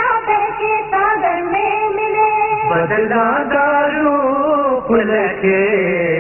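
Background music: a song whose sung melody holds and bends its notes over instrumental accompaniment.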